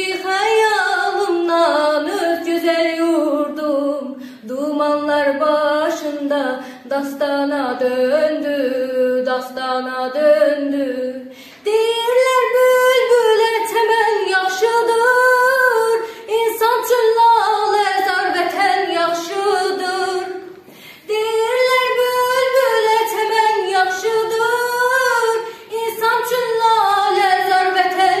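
A girl singing solo and unaccompanied, in long held phrases with short pauses for breath between them. About twelve seconds in, the melody moves up to a clearly higher pitch.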